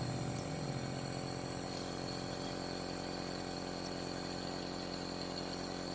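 Compressor nebulizer's small motor running with a steady, even hum as the last of the medicine is nebulized.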